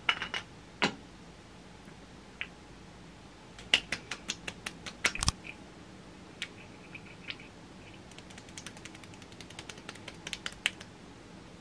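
Fingertips and palms patting skincare serum into the face: two runs of quick light taps, about five a second, with a few single clicks and one louder knock in between.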